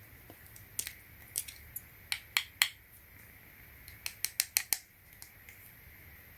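Sharp, light clicks and taps from handling a handheld car emergency tool (glass breaker, seatbelt cutter and flashlight): a few scattered ones, then a quick run of about six about four seconds in.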